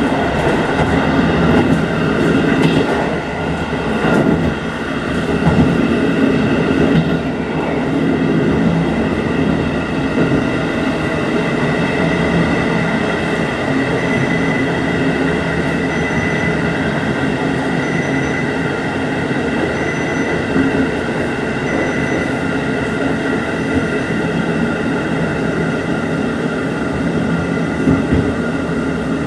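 JR Hokkaido 711 series electric multiple unit running along the line: steady motor hum and wheel-on-rail noise, with a few brief swells and dips in the first seven seconds and then an even run.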